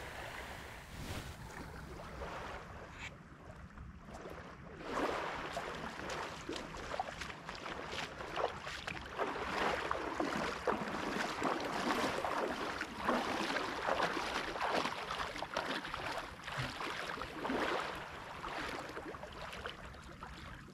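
Shallow seawater splashing and lapping, with irregular splashes that get louder about five seconds in, and wind buffeting the microphone.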